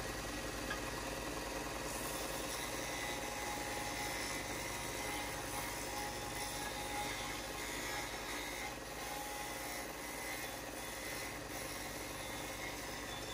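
A motor running with a steady whir and a fast, even low pulse.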